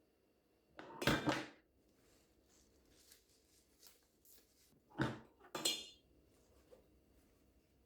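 Dishes and utensils being handled in a kitchen: two short bursts of clinking and knocking, about a second in and again around five seconds in, with light taps between.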